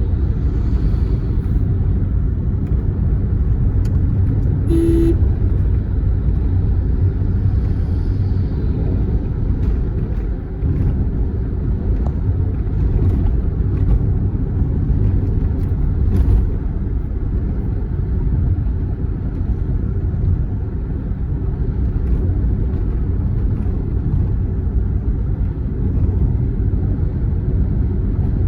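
Steady low rumble of a moving road vehicle: engine and tyre noise as it drives along. There is a short single-pitched beep about five seconds in.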